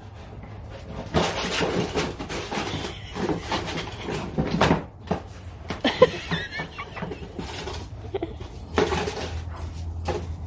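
Two dogs playing with rope toys and a small cardboard box on a concrete floor: irregular scuffling and scraping of paws, box and toys, with short dog noises among them.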